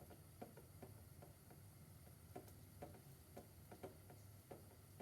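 Faint irregular ticking, two or three small ticks a second, over a low steady hum.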